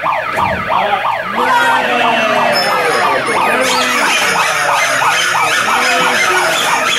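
Loud siren-like wailing: many overlapping tones rising and falling over and over without a break.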